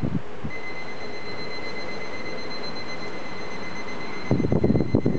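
Electronic alarm clock ringing with a steady, high, unbroken tone that starts about half a second in. A short burst of knocks and rustles comes near the end.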